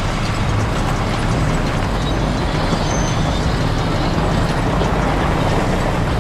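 John Deere 350G excavator's diesel engine running loudly and steadily as the machine travels on its crawler tracks close by.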